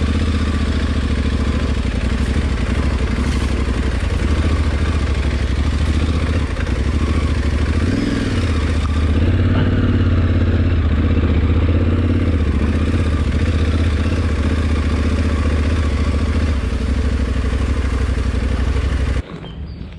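Adventure motorcycle engine running at low, fairly steady revs as the bike is ridden slowly along a dirt forest trail, picking up in pitch about eight seconds in and easing back a few seconds later. The sound cuts off abruptly near the end.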